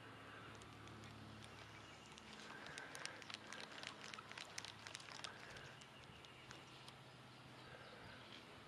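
Near silence: faint irregular clicks and ticks for a few seconds in the middle, over a faint low steady hum.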